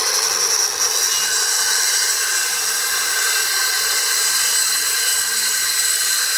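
Corded Black & Decker circular saw running steadily while it cuts through a wooden board, with a steady motor whine over the noise of the blade in the wood.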